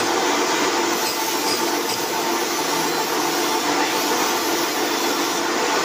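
A large pillar drill press's electric motor running steadily with no load, a constant mechanical hum with a few faint steady tones.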